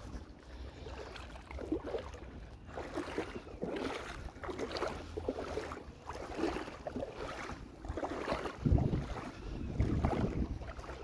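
Wind buffeting the microphone, with shallow seawater sloshing around a wading angler's legs in irregular swells that grow stronger near the end.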